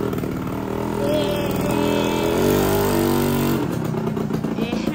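Motorcycle engine running at a steady pitch while riding along, strongest in the middle, with a brief voice over it.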